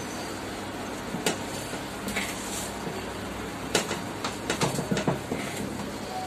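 A hand-held cake scraper smoothing whipped cream around the sides of a layer cake, with a few sharp clicks and knocks as the scraper and cake board are handled, mostly in a cluster in the second half, over a steady low background hum.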